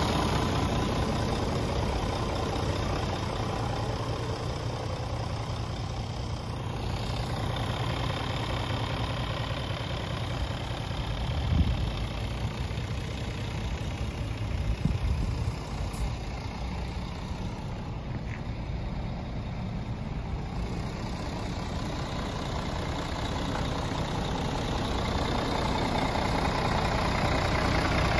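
Scania G410 truck's six-cylinder diesel engine idling steadily, louder at the start and again near the end and somewhat quieter in between. There are two brief knocks about halfway through.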